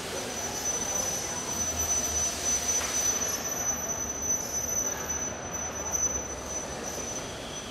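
Car-body-plant machinery running: a steady rumble and hiss with a continuous high whine, as a roll-up door lowers over a conveyor carrying a bare car body.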